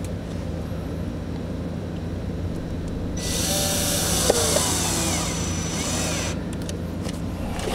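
Power drill driving a self-tapping screw, running for about three seconds from about three seconds in, over a steady low hum.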